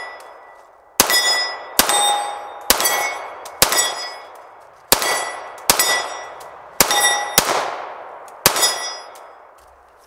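Taran Tactical Innovations Sand Viper compensated pistol fired nine times at an even pace, about one shot a second. After each shot comes the clang of a steel target being hit and ringing out.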